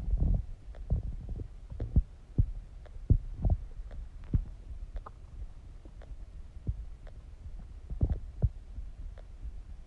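Human stomach gurgling while digesting: irregular short, low pops and rumbles over a faint steady hum. The pops are loudest at the start and again about eight seconds in.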